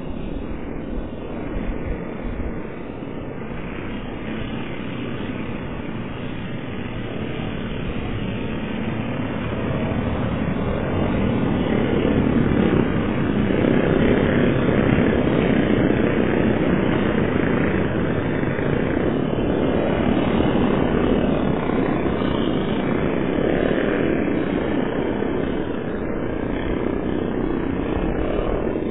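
Engines of a pack of small junior off-road race karts running on a dirt track, blended into one steady drone. It grows louder about ten seconds in and eases off a little near the end.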